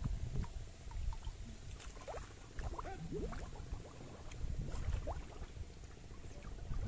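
Pond water sloshing and splashing unevenly as a person wading waist-deep stirs it and reaches down into it with his hands.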